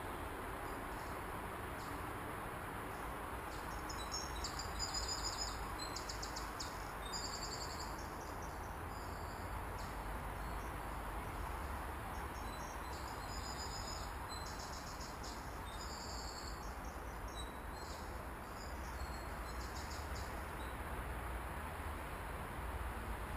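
Insects chirping in fast pulsed trills that come and go in bouts, over a steady rushing hiss with a low rumble underneath.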